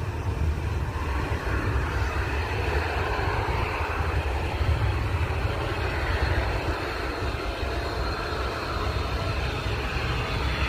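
Airliner engines across an airfield: a steady rumble with a broad hiss.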